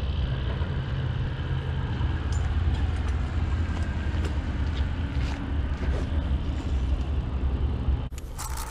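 Steady low rumble of road traffic on a nearby highway bridge, with a few faint clicks over it.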